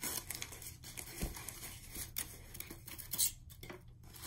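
Cardboard box being opened and handled: its flaps pulled apart and the cardboard scraping and rubbing in short scattered strokes, with one louder scrape a little past three seconds in.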